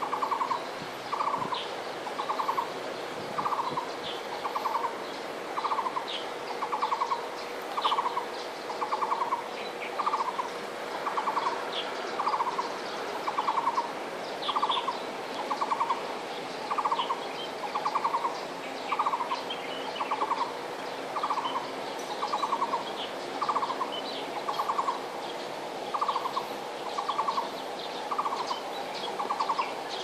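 Taiwan barbet calling: a long, even series of short phrases of rapid, pulsed notes, about three phrases every two seconds, on one pitch.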